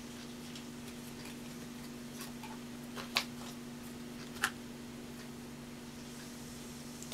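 Faint irregular ticks and rustles from hands working strands of embroidery thread, with two sharper clicks about three and four and a half seconds in. A steady low electrical hum runs underneath.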